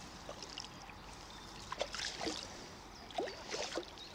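Light, irregular splashing of shallow river water, a few small splashes bunched in the middle and later part, as a small carp is let go back into the river.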